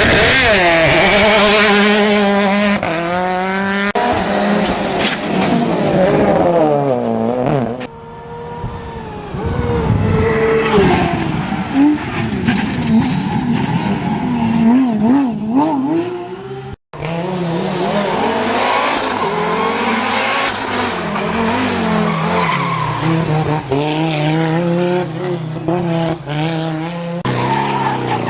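Rally cars at full throttle, engines revving up and falling back through gear changes and corners, with skidding tyre noise. Several passes are cut together, with abrupt jumps about eight seconds in and again near seventeen seconds.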